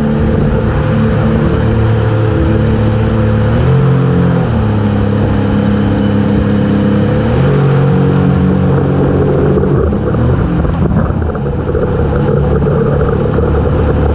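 Towing motorboat's engine running at speed, its pitch shifting up and back down a couple of times, over the rush of churning wake water and wind on the microphone.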